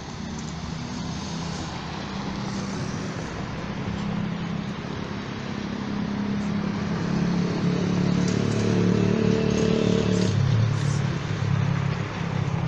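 A road vehicle's engine running close by over street traffic noise, getting louder over the first ten seconds, then dropping in pitch about ten seconds in.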